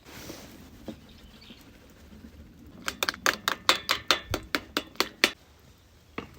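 A quick run of about a dozen sharp knocks, around five a second, starting about three seconds in and stopping a little after five seconds.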